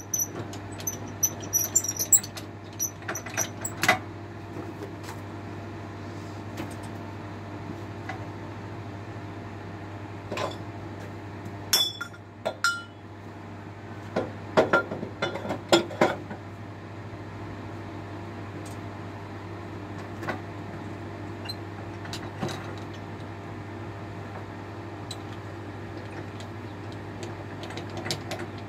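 Scattered metal clanks and knocks from the steel log clamps and bed of a bandsaw mill being adjusted against a squared timber, in clusters about a second in, around the middle, and again near twenty seconds, over a steady low hum.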